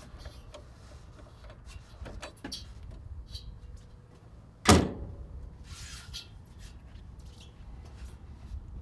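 Metal service door on an excavator's rear compartment being shut with one loud bang about halfway through, with lighter clicks and knocks of handling and the latch around it.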